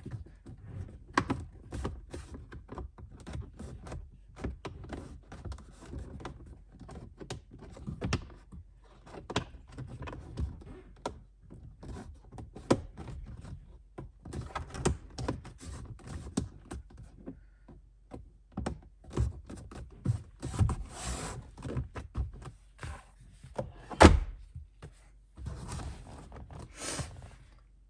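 Stiff, cold plastic dashboard trim being worked and pressed back into place by hand: a long run of knocks, clicks and scrapes, with one sharp thump about 24 seconds in.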